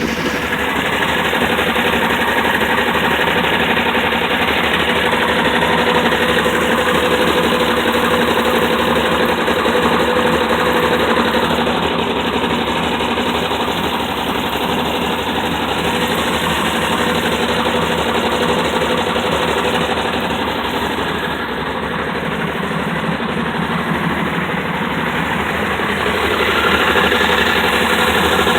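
The engine of a Dart running steadily with a continuous knocking sound from inside the engine.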